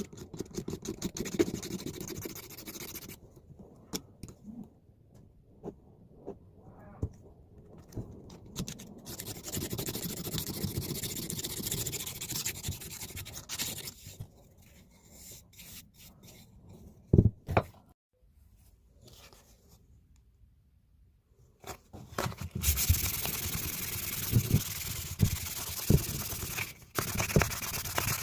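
Hand scraping and rubbing on a blacksmith punch as grime and rust are cleaned off it, in uneven strokes with short pauses. Two sharp knocks come a little past the middle. A louder, steady rushing noise starts near the end.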